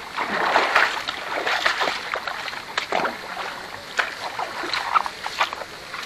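Water splashing and sloshing in irregular bursts.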